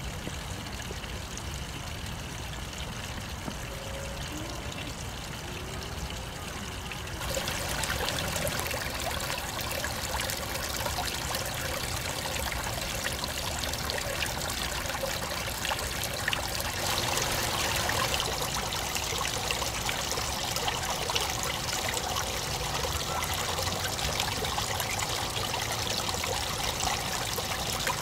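Small garden waterfall: thin streams of water trickling off a rock ledge and splashing steadily into a pond. About seven seconds in it becomes louder and brighter, as close-up trickling and dripping into the pool takes over.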